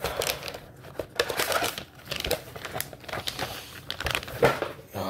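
Crinkling and crackling of foil soft-plastic bait packages and rustling cardboard as hands dig through a cardboard tackle box, with many sharp irregular crackles.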